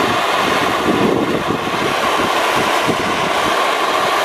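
Propane torch flame burning steadily against a steel knife blade, heating it toward red hot, with an even rushing noise that does not change.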